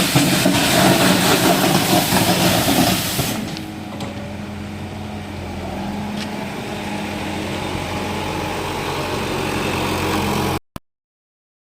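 Antonio Carraro TRG 10400 compact diesel tractor's engine running. It is loud with a rushing noise for about the first three seconds, then settles to a quieter, steady run. The sound cuts off abruptly near the end.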